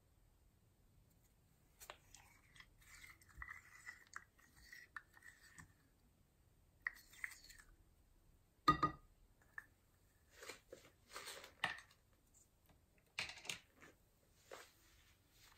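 Small plastic cup of fine silver glitter handled and tipped over a glass bowl: light crackling and rustling in spells, with one sharp knock about nine seconds in as the loudest sound.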